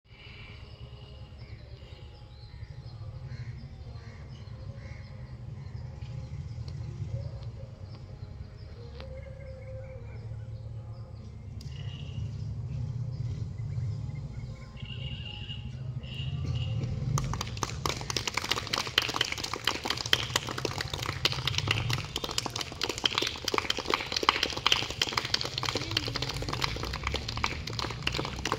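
Outdoor ambience: a steady low rumble with a few short bird chirps. About two-thirds of the way in, a dense crackling of rapid clicks starts up and is the loudest sound.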